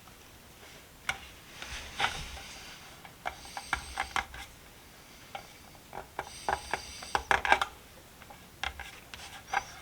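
Hands handling a small metal socket box while a decal is put on it: scattered light clicks and taps, with two spells of crisp rustling and rubbing about three and a half and six and a half seconds in.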